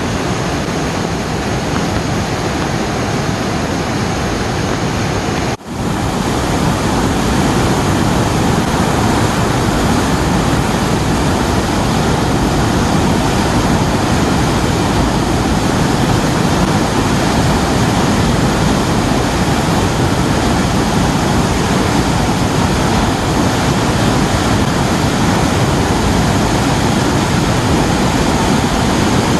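Waterfall in full spate after heavy rain: a loud, steady rush of falling water. About five and a half seconds in, it cuts out for an instant and comes back slightly louder.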